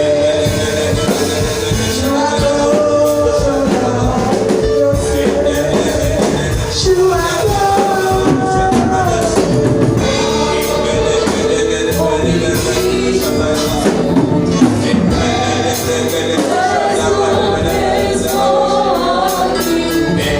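Gospel choir singing a worship song with a live band and percussion, the voices carrying a melody over a steady beat.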